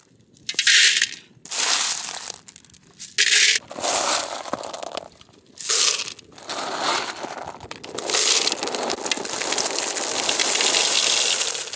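Small snail shells (oomachi) clattering and rattling against each other and the clay pot as they are poured into it by hand and from a woven bamboo tray. There are several short pours with pauses between them, then one long steady pour starting about eight seconds in.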